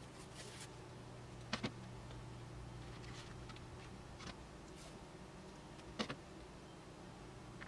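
Faint handling noises from hands working with a keyboard's thin plastic membrane sheets and tape: light ticks and short scrapes, with two sharper double clicks, one about a second and a half in and one near six seconds, over a steady low hum.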